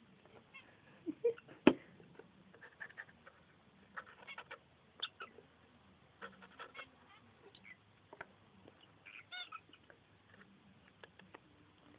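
Rosy-faced lovebird giving short, scattered squeaks and chirps from a wooden nest box. A single sharp knock comes about two seconds in and is the loudest sound.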